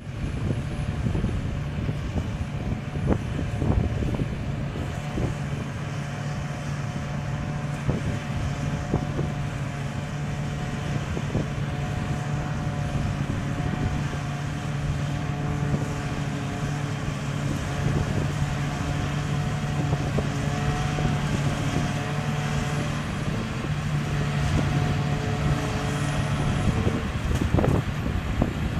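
Forage harvester working a field of cut grass, its diesel engine running steadily under load with a constant hum and occasional clicks.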